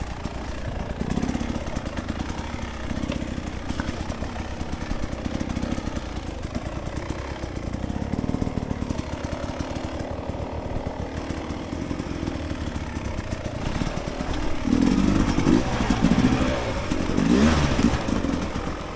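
Dirt bike engine running at low trail speed, with the throttle opened harder for the last few seconds, its pitch rising and falling.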